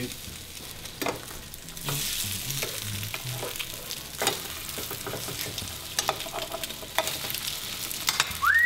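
French toast sizzling steadily in a nonstick frying pan, with a spatula scraping and clicking against the pan now and then as the slices are turned. Near the end a person starts a whistle that rises sharply in pitch.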